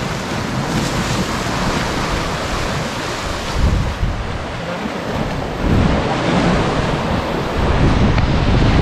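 Sea waves breaking and washing over shoreline rocks, with wind buffeting the microphone; heavier surges hit about three and a half, six and eight seconds in.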